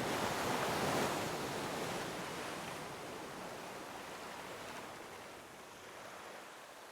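Sea water rushing and washing along a sailboat under way, with some wind, fading out steadily.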